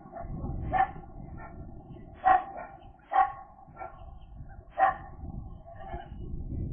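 Gull giving short, barking call notes: four loud ones about a second apart, with fainter notes between, over a low rumble.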